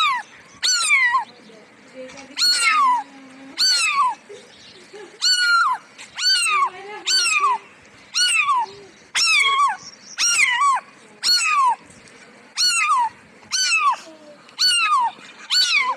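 A cat meowing over and over: short, high-pitched meows that fall in pitch, about one a second.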